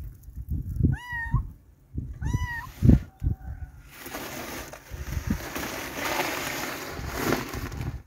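Tabby kitten meowing twice, two short high-pitched cries that rise and then fall, a little over a second apart. In the second half comes a rushing noise lasting about four seconds, with low thumps throughout.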